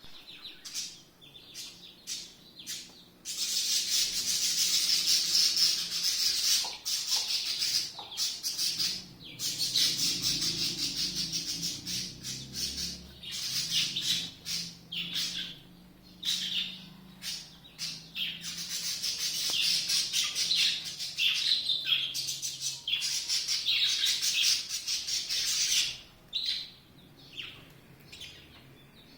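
Many birds chirping together in a dense chorus of high calls from about three seconds in until near the end, with a few separate chirps before and after.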